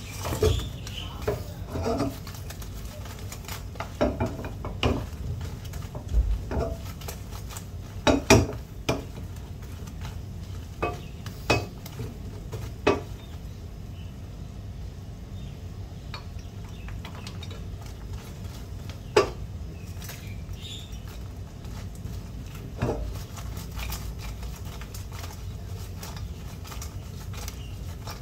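Wooden spoon knocking and scraping against a stainless steel frying pan while stirring a sticky sauce and turning chicken wings, in irregular clicks that come thicker in the first half and more sparsely later, over a steady low rumble.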